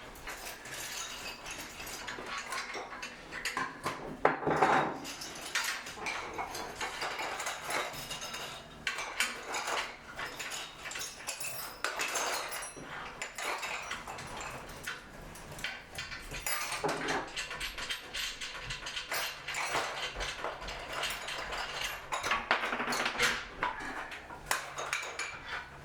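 Irregular clinking, knocking and rattling of loom parts being handled as the loom is taken apart, with a few longer scraping or rustling passages.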